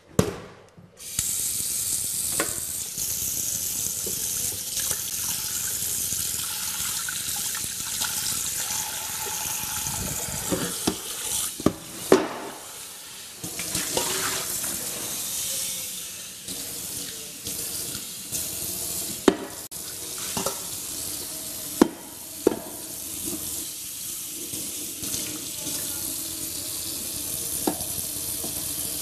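Kitchen sink tap running steadily, water splashing as things are washed under it, with occasional sharp knocks and clanks. The water comes on about a second in.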